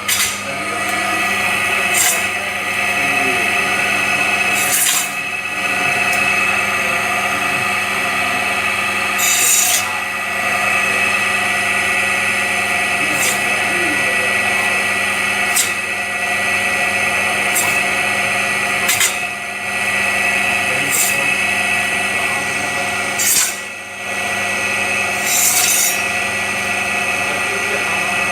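Electric chicken-cutting machine running steadily, its blade cutting through chicken pieces in short harsh bursts every two to four seconds.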